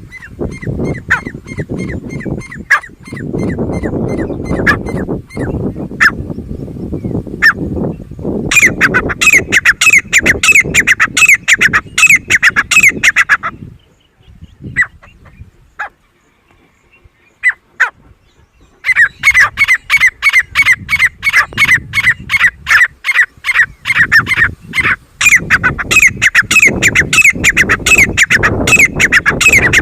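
Grey francolin calling: loud, shrill notes repeated rapidly, about four a second, in two long bouts with a pause of a few seconds between them, over a low rumble.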